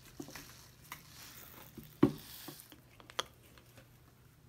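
Coloured sand trickling through a small plastic funnel into a glass light bulb, a faint hiss with light scattered clicks and one sharp tap about two seconds in.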